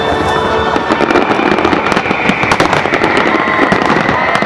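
Aerial fireworks display: many shells bursting, a dense run of crackling pops that thickens after about a second.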